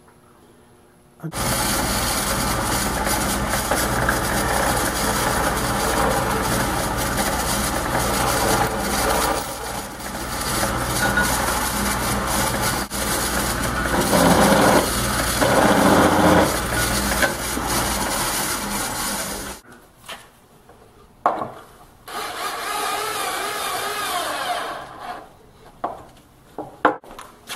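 Drill press running and boring into wood, with a steady motor hum under the cutting noise, which swells twice near the middle as the bit bites in. It cuts off about two-thirds of the way through; a shorter burst of power-tool noise and a few clicks follow.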